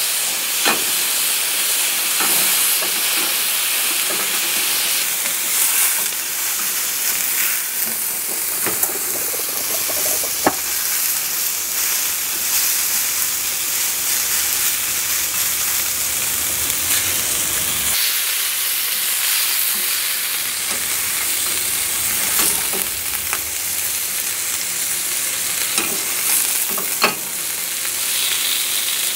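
Hamburger patty sizzling steadily in a hot skillet, with a nylon spatula scraping and tapping against the pan a few times as the meat is pressed and turned.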